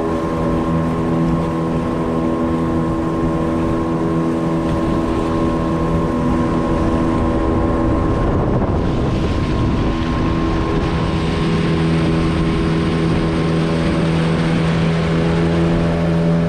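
Outboard motor of a small river boat running steadily under way, over a rush of water and wind noise. About halfway through, the engine's steady tone blurs for a couple of seconds, then settles again.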